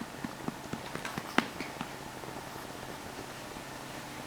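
Yorkshire terrier lapping water: a quick run of wet clicks, about four a second, that stops about a second and a half in.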